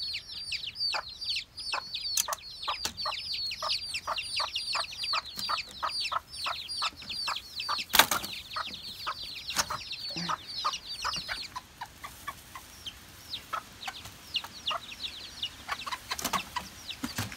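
A brood of young chicks peeping continuously, several short high downward-sliding peeps a second, thinning out in the second half. A single sharp knock sounds about eight seconds in.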